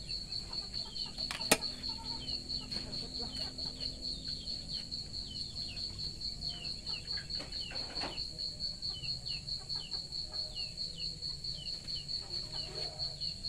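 An insect trills steadily in fast, even, high-pitched pulses, with short falling peeps repeating about every half second. A single sharp knock sounds about one and a half seconds in.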